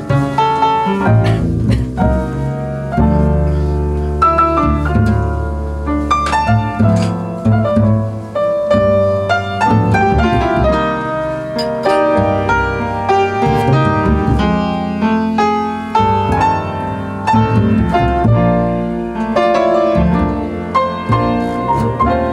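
An upright piano and a plucked double bass playing jazz together, the piano notes over low, sustained bass notes.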